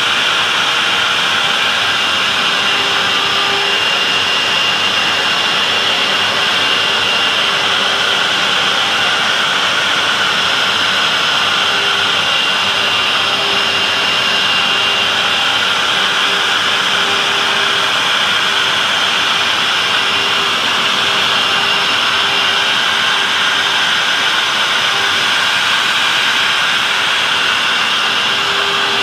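Industrial machinery running steadily: a loud, even rushing noise with a constant hum and a fainter high whine.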